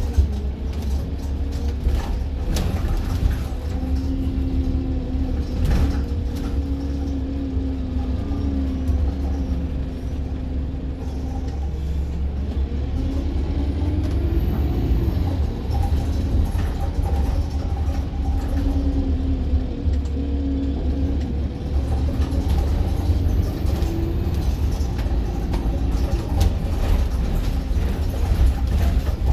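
Interior of a diesel bus on the move: the engine runs under a heavy low rumble, its pitch rising and falling as the bus pulls away and slows, with knocks and rattles from the body. Twice a faint high whistle rises and falls.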